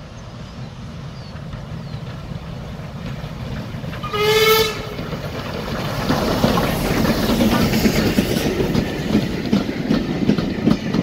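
Two steam tank locomotives, an LSWR O2 tank engine and a Beattie well tank, working a train: the exhaust and rumble grow as they approach, one short whistle blast sounds about four seconds in, then the engines and coaches pass close with the wheels clattering on the track.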